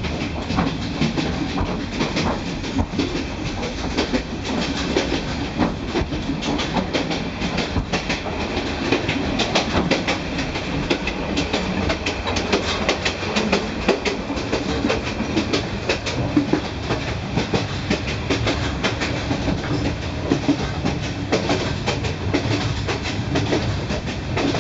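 Overnight passenger train running at speed, with a continuous rumble and dense, irregular clattering and knocking of wheels on the rails as the carriage rattles and sways heavily.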